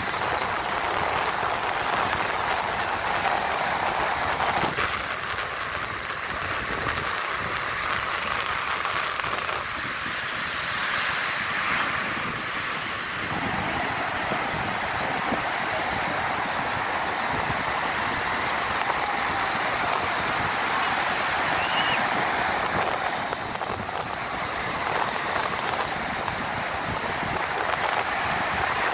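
Surf breaking offshore and washing up the sand at the shoreline, a steady rush of water noise, with some wind on the microphone.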